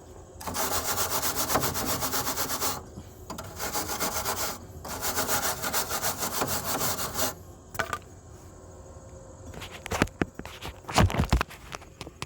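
Hand wire brush scrubbing a fresh flux-core weld on a metal mower cutting deck: three bouts of rapid back-and-forth strokes, cleaning slag and spatter off the bead. A few sharp knocks follow near the end.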